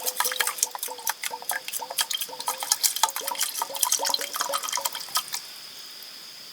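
Water splashing and dripping in quick irregular plinks, which stop about five seconds in.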